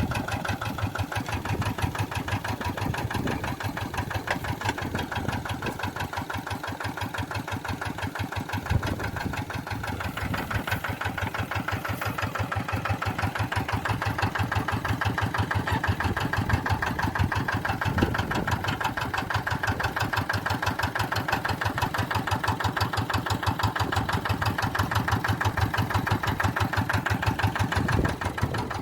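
Tractor engine running steadily with a rapid, even firing beat.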